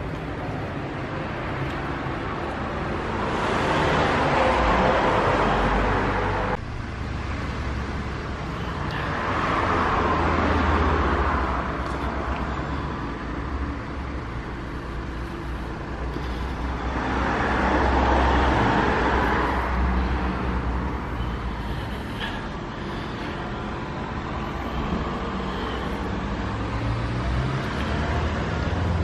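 Road traffic: a steady low rumble, with vehicles passing three times, each swelling up and fading over a few seconds. The first pass cuts off suddenly.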